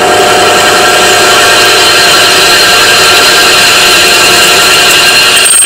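Benchtop pillar drill with a freshly hand-sharpened HSS bit drilling dry into steel: a loud, steady cutting whine with several high ringing tones, cutting off abruptly at the very end.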